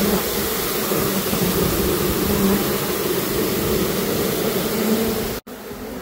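A dense mass of honeybees buzzing loudly close up: a steady droning hum under a hiss. About five and a half seconds in it drops suddenly to quieter buzzing.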